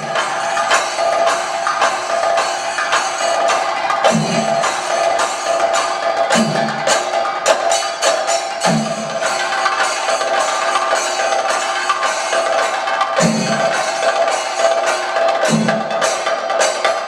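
Thayambaka on chenda drums: a dense, rapid stream of stick strokes, with a deeper beat about every two seconds and a steady metallic ring from ilathalam cymbals underneath.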